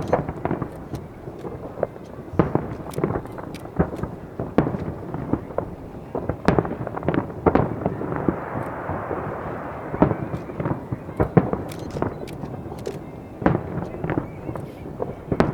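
Aerial fireworks display: many shell bursts booming one after another, some in quick clusters.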